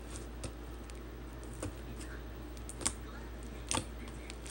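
Slime being kneaded and squeezed in the hands, giving a few short, sharp clicks and pops, about four in all, the loudest about three seconds in, over a steady low hum.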